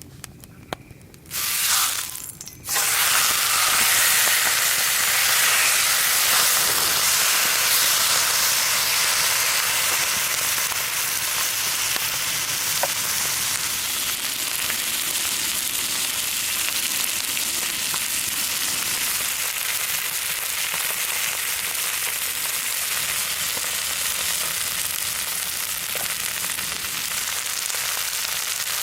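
Chicken put into a hot pan over a campfire, sizzling loudly in hot fat. A brief burst comes just over a second in, then steady loud frying from about two and a half seconds in, easing only a little.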